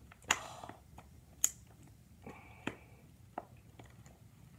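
Makeup containers being handled: a handful of sharp clicks and taps, with a short rustle after the first.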